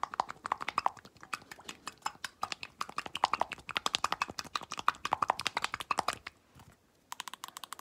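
Rapid tapping on a handheld object held close to the microphone, about eight to ten taps a second. The tapping pauses briefly a little after six seconds in, then picks up again faster near the end.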